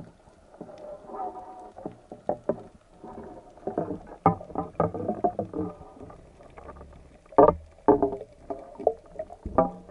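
Irregular knocks and clatter from spearfishing gear being handled underwater, the spear shaft and speared fish knocking against the camera housing, with a low rumble of water beneath. Two of the knocks, about seven and a half seconds in, are the loudest.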